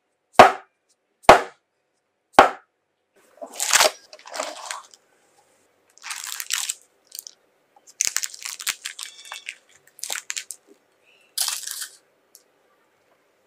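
A baked sponge cake's metal cake tin knocked down onto the table three times, each a sharp thud. Then parchment paper crinkling in bursts as it is peeled off the sides of the cake.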